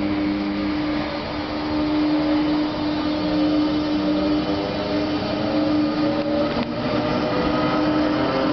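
Locomotive of an express passenger train running past at close range, with a steady loud hum and a motor whine that rises slowly in pitch as the train gathers speed.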